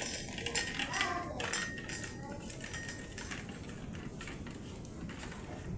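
Light, scattered clicks and clinks of kitchenware being handled on a counter.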